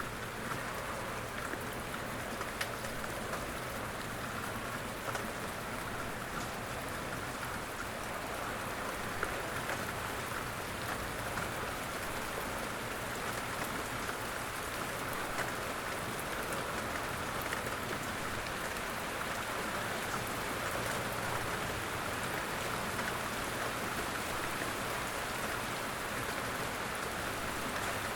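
Steady rain falling on a surface, a continuous patter with scattered individual drops, growing slightly louder partway through.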